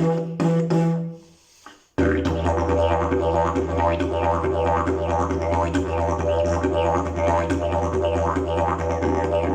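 Fiberglass-and-leaf slide didgeridoo playing a steady low drone with shifting overtone sweeps above it. The drone breaks off shortly after the start and comes back in at about two seconds.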